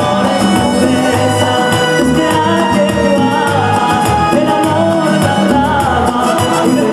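A song with a steady beat, a man singing the melody live into a handheld microphone.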